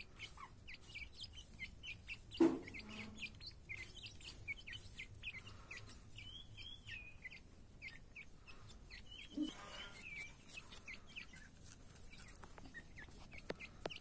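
Young grey francolins peeping: many short, high chirps, several a second, with a louder, lower sound about two and a half seconds in and another about nine and a half seconds in.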